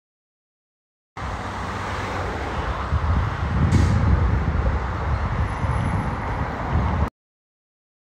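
Road traffic going by, with a city bus passing. The sound cuts in suddenly about a second in, swells to its loudest around four seconds in, and cuts off abruptly about seven seconds in.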